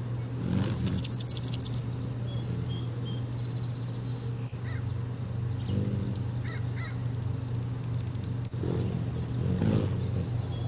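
Hummingbirds at a nectar feeder: a burst of rapid, harsh, high-pitched chattering about half a second in, and more rapid chatter with small chirps from about six to eight seconds in, over a steady low hum.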